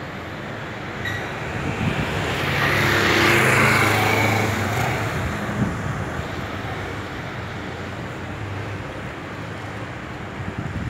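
Street traffic with one motor vehicle passing close by. Its engine and tyre noise swell to a peak a few seconds in, then fade into the general traffic hum.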